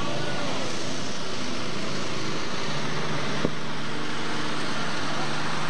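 Competition pulling tractor's engine running flat out as it drags the weight sled, a loud steady drone. It is broken by a brief sharp click about three and a half seconds in, where the recording is edited from one tractor's run to another's.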